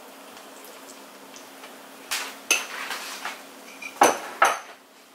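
Metal kitchen utensils clinking against a non-stick pan and dishes: a few sharp clinks from about two seconds in, with the loudest two close together near the end.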